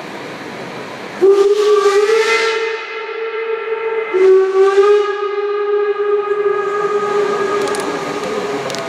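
Steam whistle of the class 01 steam express locomotive 01 509 blowing two long blasts, nearly back to back, the second longer than the first, over a steady hiss.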